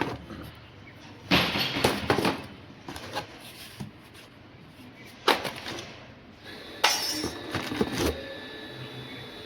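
Hard objects being handled: a few bursts of clattering and knocking, with quieter gaps between them.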